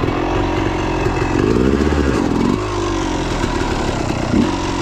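Dirt bike engine running under throttle, revving up about a second and a half in and dropping back a second later.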